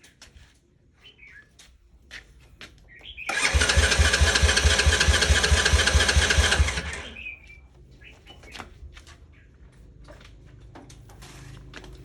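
An engine turning over with an even beat for about three seconds, starting a few seconds in, then stopping. Scattered clicks come before and after it.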